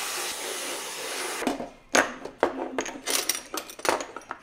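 Dried herbs poured from a plastic container make a steady rustling hiss. About a second and a half in, glass spice jars are set down one after another in a kitchen drawer, knocking and clinking about eight times.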